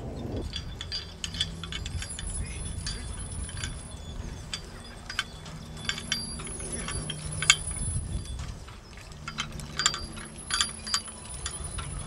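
Metal parts of a horse-drawn 'Le Simplex' seed drill and the horse's harness chains clinking and jangling irregularly as the drill is pulled across tilled soil, with one sharper clank about halfway through.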